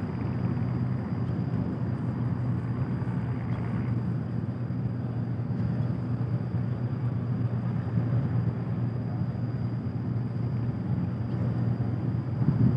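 Low, steady drone of the Pelni passenger ship KM Kelud's engines running at the berth, ready for departure.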